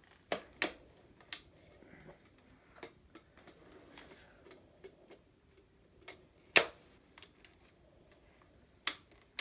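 Hard plastic clicks and snaps of attachments being fitted onto a Nerf Modulus Regulator blaster, with faint handling rattles in between. There are a few sharp clicks in the first second and a half, a single loud snap about six and a half seconds in, and two more clicks near the end.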